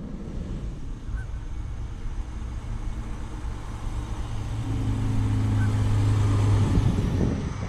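Fire engine approaching along the road and driving past: its engine grows steadily louder, with a steady low drone loudest about six seconds in, then falls away as it goes by near the end.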